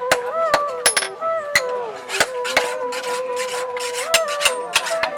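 Irregular sharp metal strikes from blacksmith work, about two a second, over music carrying a held melody that steps and slides between a few notes.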